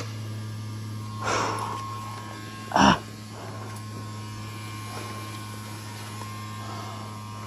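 A steady low hum, with a short rustle about a second in and a brief, sharp sound near three seconds.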